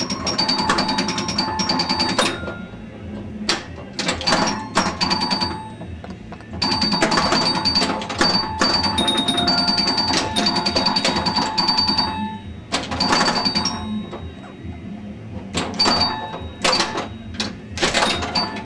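1977 Bally Strikes and Spares pinball machine in play: its sound-effect tones ring in quick runs over the sharp clacks of bumpers and solenoids, with a couple of short lulls.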